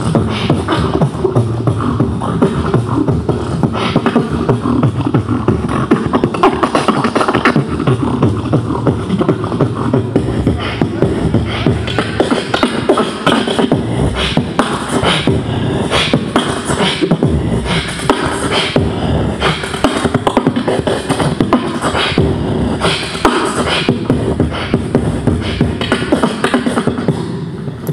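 Live beatboxing amplified through a handheld microphone: rapid, dense mouth-made drum hits over a steady held tone.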